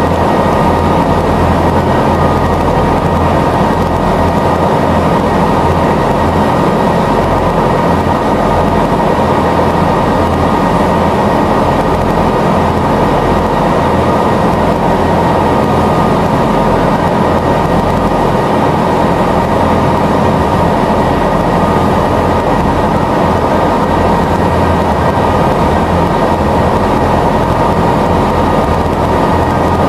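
Passenger boat's engines running steadily under way, heard from inside the cabin: a constant low hum with a steady high whine over the rush of the hull through the water.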